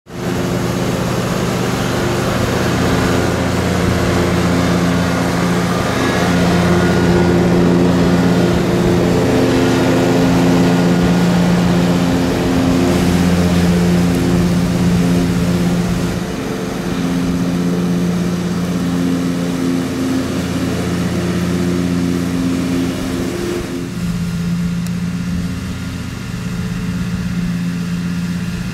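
Engine of a Craftsman riding lawn mower running steadily as it mows.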